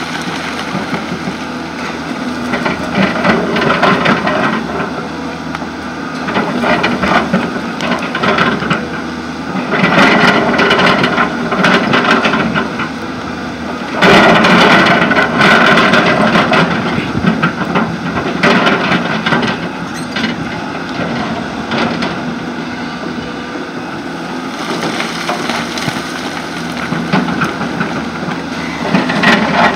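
Excavator working: its diesel engine runs under load, surging repeatedly as the hydraulics dig and swing, with crunching of soil and rock.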